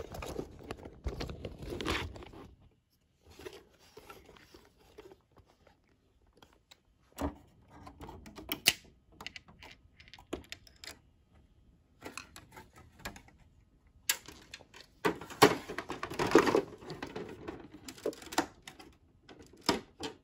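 Plastic LEGO bricks and plates being handled: scattered clicks and clatters as a large brick-built section of a model base is lifted and fitted, busiest about fifteen seconds in.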